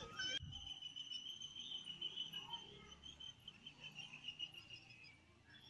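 An insect trilling: a thin, high, steady buzz that wavers slightly and fades out about five seconds in, after a few short chirps at the very start.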